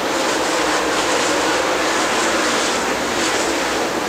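A field of dirt late model race cars running on the track, their V8 engines blending into one steady, dense engine noise.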